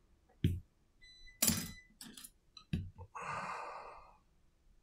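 Clicks and knocks of a partly opened smartphone and metal tweezers being handled. The loudest comes about a second and a half in and rings briefly. About three seconds in there is a short scraping rub lasting about a second.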